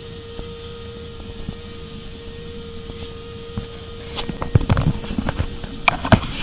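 Jet boat engine running steadily, a low rumble with a steady hum. From about two-thirds of the way in, a series of sharp knocks and clatters comes over it, loudest near the end.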